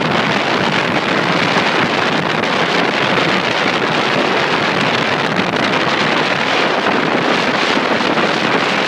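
Steady rush of wind buffeting the microphone on a motorboat running at speed, over the boat's engine and water noise.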